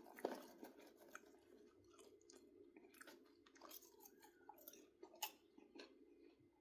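Faint chewing of popcorn close to the microphone: soft, irregular crunches and mouth clicks.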